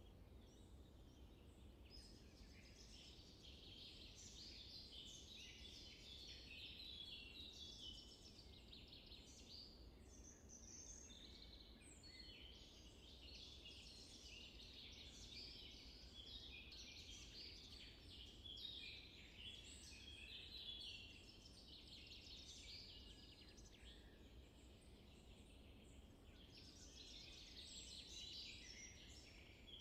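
Faint, continuous chorus of many small birds chirping and twittering together, over a low steady rumble.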